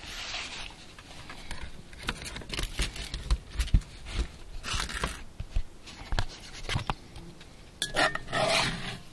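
A spatula scraping and knocking against a wire fish-grilling basket and a cast iron skillet as grilled fish fillets and potatoes are lifted out. It makes a run of light clicks and knocks, with a few short scrapes.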